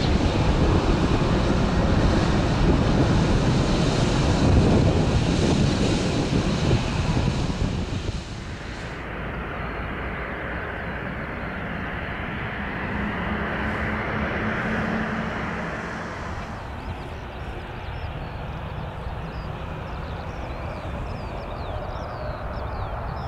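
Jet engines of a Boeing 757-200 freighter running loud on take-off for the first eight seconds, then, after a cut, a quieter, steady jet-engine hum. From about sixteen seconds in, a Boeing 737-800's jet engines run softly at taxi power, with faint high chirps over them.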